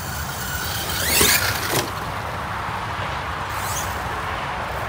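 Redcat Shredder 1/6-scale brushless electric RC monster truck's motor whining up sharply in pitch as it accelerates, cut off by a sharp knock a little under two seconds in. A fainter rising whine follows near the end.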